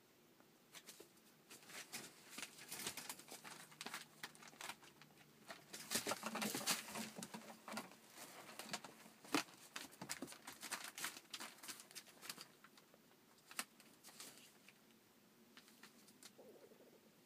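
Rough collie puppy and its mother scuffling in a wire pen: irregular scrabbling, scratching and light knocks of paws on newspaper and the pen's wire, busiest in the middle, with a short soft puppy vocal sound near the end.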